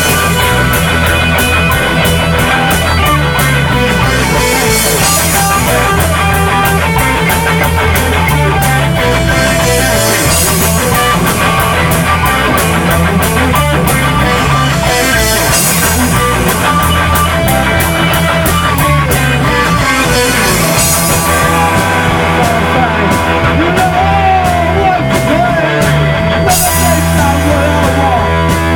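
A rock band playing loud and without a break: electric guitar, bass and a drum kit keeping a steady beat on the cymbals.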